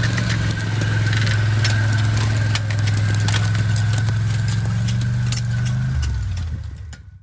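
An engine running steadily at one pitch while the ATV timber trailer's hydraulic crane works, with scattered sharp clicks and knocks over it. It fades out near the end.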